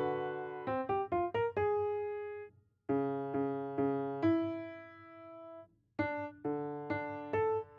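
Solo piano playing twelve-tone serial music: a quick run of short, disjointed notes, then held notes and chords that die away, broken by two brief silences.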